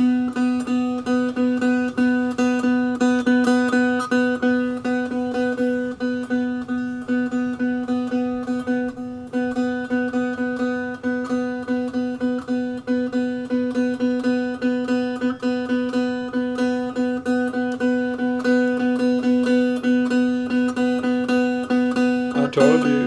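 One-string cigar box diddley bo (CB Gitty kit) plucked over and over on the same open note, about three plucks a second. It has no frets, so the pitch never changes.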